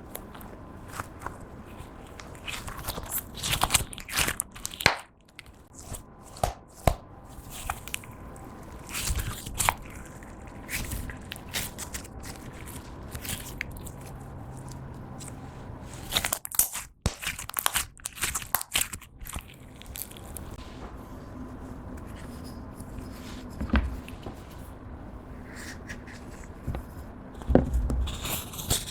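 Clear slime being worked by hand, with irregular sticky clicks, pops and crackles coming in clusters and a few short pauses.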